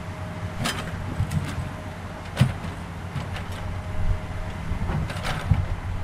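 An engine running steadily with a low hum, with a few short scratching sounds about a second in, about two and a half seconds in and about five seconds in.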